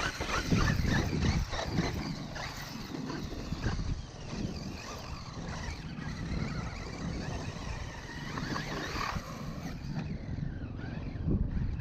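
Traxxas E-Revo 2.0's brushless electric motor whining up and down with the throttle as the RC truck drives through wet sand, with a steady rough noise underneath.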